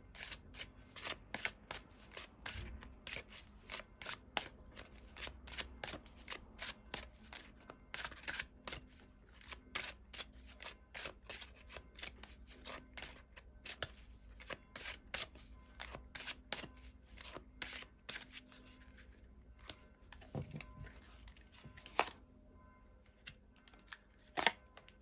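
A deck of tarot cards being shuffled by hand: a long run of short card flicks and clicks, a few a second, thinning out over the last few seconds with a few louder snaps.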